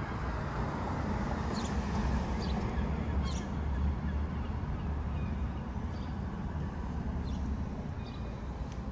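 Street ambience: a steady low rumble of traffic with a car driving through, and a handful of short, high bird chirps scattered across it.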